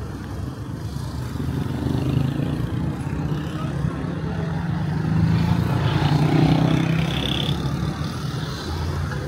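City street traffic: the low rumble of cars and other motor vehicles driving past, swelling as one comes closer about five to seven seconds in and easing after.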